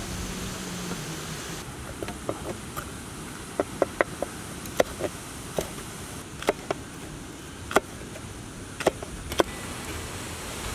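Knife slicing a yellow bell pepper into strips on a wooden chopping board: about fifteen irregular sharp taps of the blade striking the board, over a steady low background rumble and hiss.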